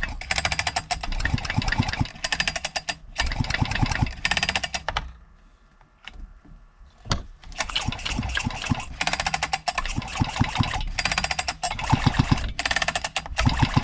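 Husqvarna 257 chainsaw's 60cc two-stroke engine cranked over by its recoil pull-starter with the spark plug removed, in repeated pulls of about a second and a half each, with a pause of about two seconds in the middle. The engine spins freely without compression while oil and penetrating oil are worked through it after ten years of sitting.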